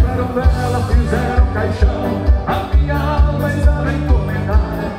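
Live gaúcho band music with a steady bass beat.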